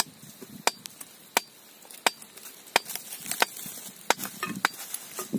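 Small hammer knocking at limestone rock to free a plant's roots: about eight sharp, evenly paced blows, one every two-thirds of a second or so.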